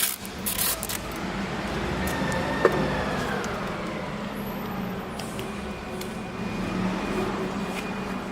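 A steady low background hum, with a faint vehicle passing whose pitch falls slowly in the middle. There are a few short clicks and rustles in the first second and one sharp click near the middle.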